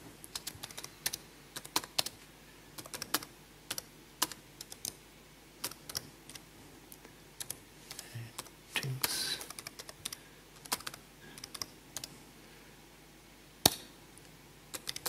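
Computer keyboard being typed on in short, irregular runs of key clicks as shell commands are entered, with one louder key stroke near the end.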